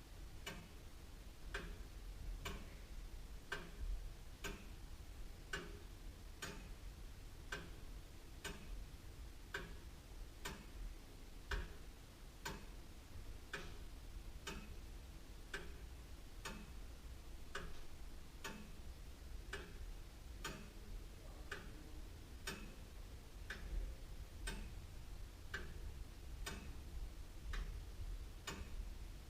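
Antique William Holliwell of Liverpool clock ticking steadily, about one tick a second.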